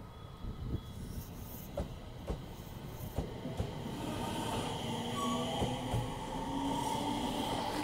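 Aoimori Railway 701-series electric train pulling away and passing close by: the traction motors' whine climbs slightly in pitch as it gathers speed. The wheels click sharply over the rail joints a number of times, and the whole sound grows louder as the cars go past.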